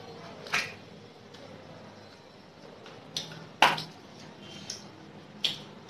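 Close-up eating sounds of someone chewing chicken curry with rice, with about five sharp crunches or cracks as chicken bones are bitten. The loudest crunch comes a little past halfway.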